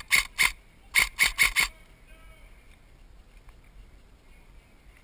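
Six sharp shots from a BOLT B4A1 recoil-system airsoft electric rifle fired as quick single shots, two and then a string of four about a quarter-second apart, all in the first two seconds.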